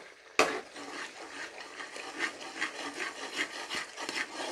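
A spoon knocks sharply against a cooking pot about half a second in, then scrapes and stirs quickly around it, about five strokes a second, as a thick masala with chicken gizzards is bhuna-fried.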